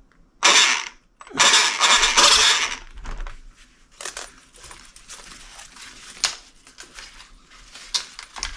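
Rustling of a crumpled black cover as it is handled and moved by hand, with two loud bursts in the first three seconds, then scattered small clicks and taps.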